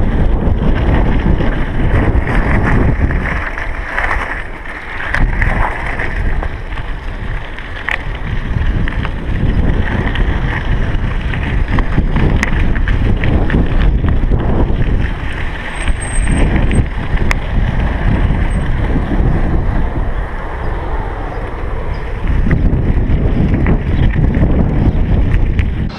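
Wind buffeting the microphone of a chest-mounted GoPro Hero3 while cycling, a loud steady rumble with occasional sharp clicks.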